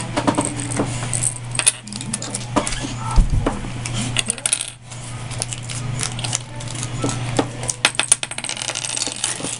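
Small plastic Kinder Surprise toy pieces and capsules clicking and clattering as they are handled: many light, irregular clicks and rattles over a steady low hum.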